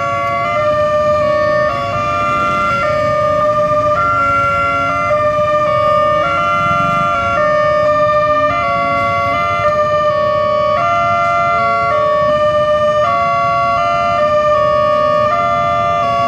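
Electronic railway level-crossing alarm sounding continuously: steady electronic tones stepping back and forth between a few pitches in a repeating pattern, the warning that a train is approaching and the crossing is closed. Low traffic noise from motorcycles and a truck runs underneath.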